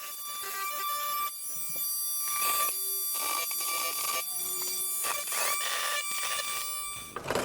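Oscillating multi-tool buzzing steadily as it cuts a notch, with a rough rasping surge roughly once a second as the blade is pushed into the material.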